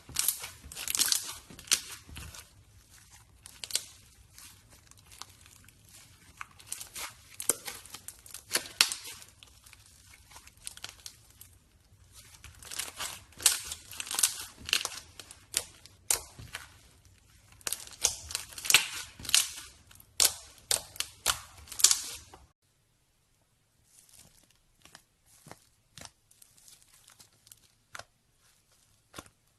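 Slime being squeezed and stretched by hand, making clusters of quick crackling and popping sounds. About three-quarters of the way through there is a sudden cut, after which the pops are fainter and further apart.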